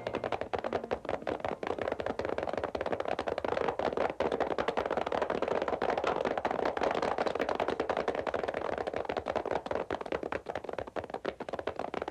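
A group of horses galloping: a dense, fast, unbroken clatter of many hoofbeats.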